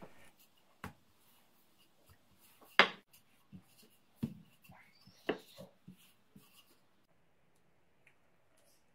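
Wooden rolling pin rolling out dough on a wooden board: soft rubbing with a handful of sharp knocks of the pin against the board, the loudest about three seconds in.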